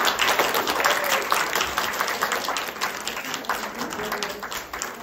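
Audience applauding, loudest at first and slowly dying away.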